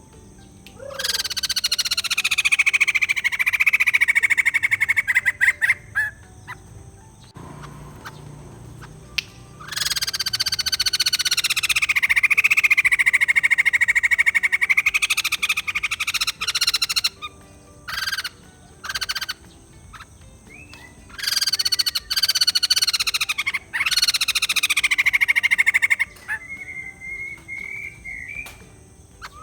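White-crested laughingthrush calling in long, rapid, rattling cackles: three bouts of several seconds each, sliding down in pitch and levelling off, with a few shorter bursts between them and a short steady whistled note near the end.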